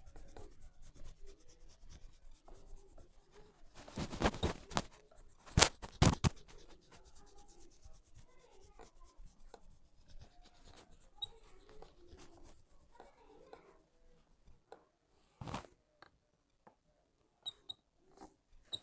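Fingers rubbing and scratching through hair during a head massage: a dense, continuous scratching with louder scratchy bursts about four to six seconds in and again near the end.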